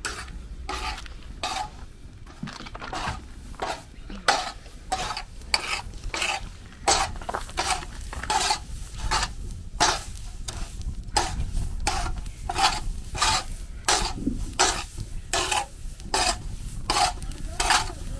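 Metal spatula scraping and stirring dried acorn skins on a large iron griddle over a wood fire, in repeated strokes about two a second.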